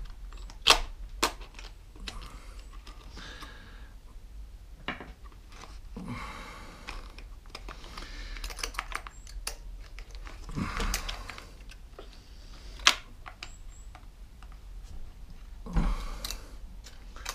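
Sharp clicks and light clatter of small plastic and metal parts as a Homelite chainsaw's chain brake assembly is worked apart by hand. Stretches of rubbing and scraping come between the clicks, with a loud click about a second in and another near the end.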